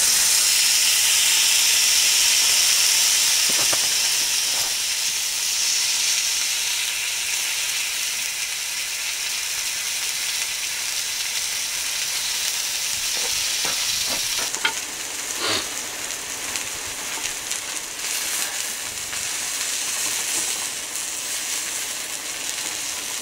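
Steak sizzling on a hot iron grill plate over a gas stove. The sizzle starts suddenly and is loudest as the meat goes down, then settles into a steady sizzle, with a few light clicks about two-thirds of the way through.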